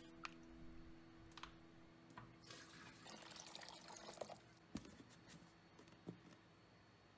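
Faint pouring of water into the water bath of a foam cooler for a couple of seconds, as water is added to adjust the bath's temperature for incubating homemade yogurt. A few light knocks from the glass jars and the cooler lid come before and after.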